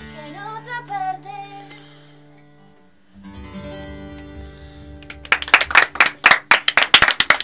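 Acoustic guitar and a woman's singing closing a song: the last sung phrase fades, a final guitar chord rings, and about five seconds in, hand clapping breaks out.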